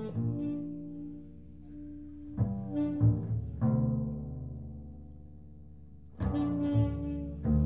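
Tenor saxophone and double bass improvising together: held notes that start, swell and fade in several phrases, with a louder, busier passage starting about six seconds in.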